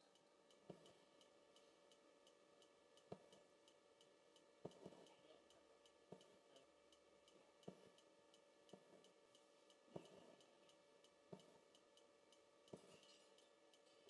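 Faint sharp clicks of an embroidery needle piercing taut fabric and thread being pulled through, about one every second or so at an uneven hand-stitching pace, over a quiet room hum.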